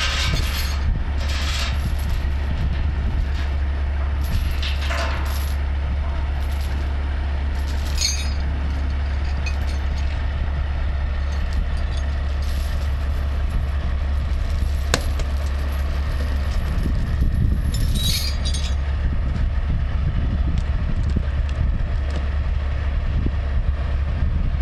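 Steady low drone of a heavy diesel engine idling, with a few sharp knocks.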